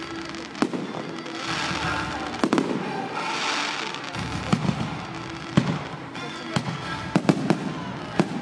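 Fireworks display: about ten sharp bangs of aerial shells bursting, several in quick succession near the end, with hissing, crackling stretches between them.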